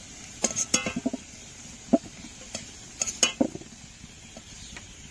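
A metal cooking utensil clinking and scraping against a karahi (wok) as fried potatoes are lifted out of the oil: a run of irregular sharp clinks, some ringing briefly, that stops after about three and a half seconds.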